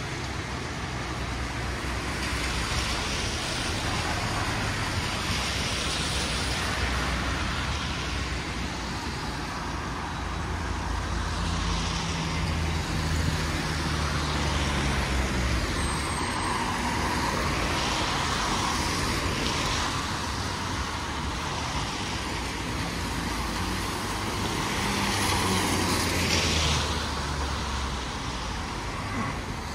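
Road traffic on a rain-soaked street: cars passing one after another, each a rising and falling swish of wet tyres over a low engine hum. The loudest pass comes near the end.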